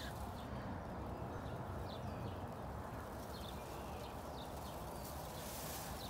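Steady outdoor background rumble with a few faint, high bird chirps now and then, and a short hiss near the end.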